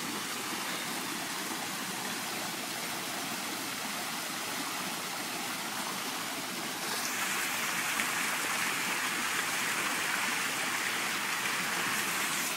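Torrential rain pouring down on a swimming pool, mixed with the splashing of the pool's rock waterfall, as a steady hiss of water. About seven seconds in it grows louder and brighter.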